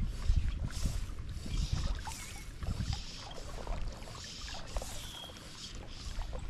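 River water sloshing and splashing in irregular pulses, with a few short high chirps.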